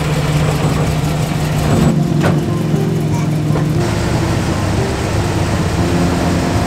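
Engines of lifted off-road rigs idling, a steady low hum. The engine note changes about two seconds in and again about four seconds in, with a couple of brief knocks in between.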